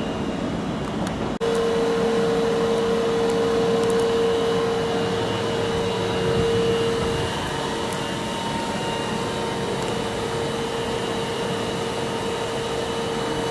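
Stopped Osaka Metro subway train idling at the platform, a steady electrical whine and fan hum from its onboard equipment and air conditioning. The sound breaks off abruptly about a second in and resumes at once.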